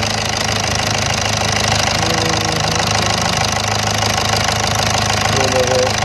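Volkswagen Vento's 1.6 TDI four-cylinder common-rail diesel idling steadily soon after a cold start. It is running smoothly, which the mechanic takes as a sign that the earlier injector shut-off fault is cured.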